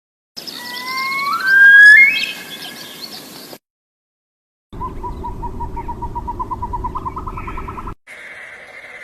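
Bird calls in two separate clips with a silent gap between them. First comes a loud whistled call with notes gliding upward in pitch. Then comes a fast, even run of short notes, stepping up a little in pitch near the end.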